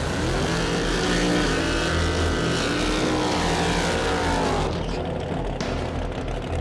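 High-powered drag racing car engines revving hard during burnouts, loud and continuous. The engine pitch slides down about four seconds in.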